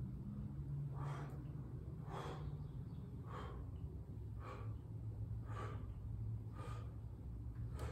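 A man breathing hard in time with an exercise, a short forceful breath about once a second, over a steady low hum.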